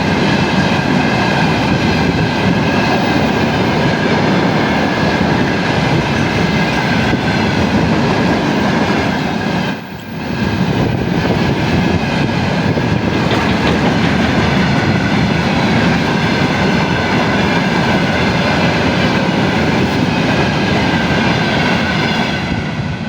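A train passing close by at speed: a loud continuous rumble of wheels on rails with clickety-clack and a steady high tone running through it, dipping briefly about ten seconds in.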